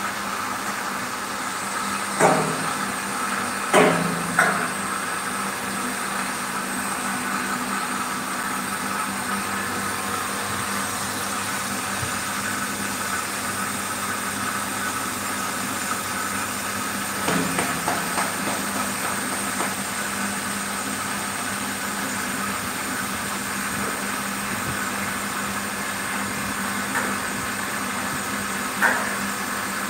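Commercial reverse-osmosis plant running: the steady hum of its high-pressure pump motor, with a few sharp knocks now and then.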